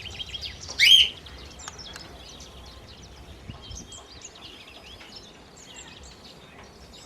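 Pet birds chirping: one loud, short call about a second in, then soft, continuous high twittering of budgies.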